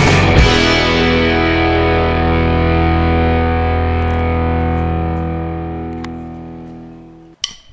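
Background rock music: a distorted electric guitar chord is struck about half a second in and rings out, slowly fading over about seven seconds. It cuts off near the end, and a couple of short, sharp hits follow.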